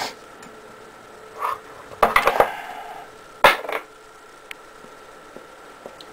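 A pepper shaker being handled and set down on a hard surface: a few scattered clicks and knocks, a short cluster about two seconds in, and the sharpest knock about three and a half seconds in.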